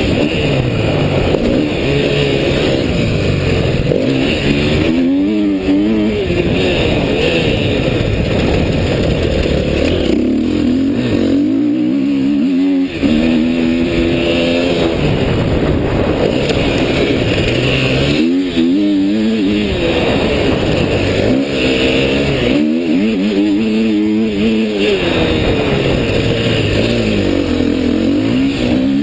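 Dirt bike engine being ridden hard, revving up and dropping back again and again as the rider works the throttle and gears, heard close up from the bike.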